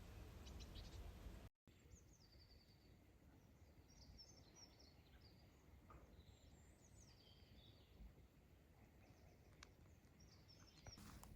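Faint birdsong: short chirps and trills from small birds, coming and going over a quiet background, with a brief dead gap from a cut about a second and a half in.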